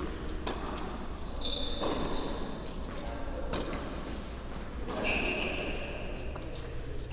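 Tennis rally on an indoor court: rackets striking the ball and the ball bouncing, a sharp hit every second or two, echoing in the hall, with two short high squeaks.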